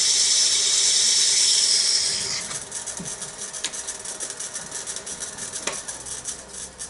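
Wood lathe spinning a wooden box while a turning tool cuts it, a loud hissing shave that stops a little over two seconds in. The lathe then keeps running more quietly, with a faint, fast, even ticking from the spinning work.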